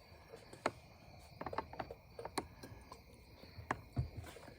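Scattered light clicks and taps of hands and a tool working the bolts of the air filter cover on a Stihl FS91R string trimmer, with faint insect chirping behind.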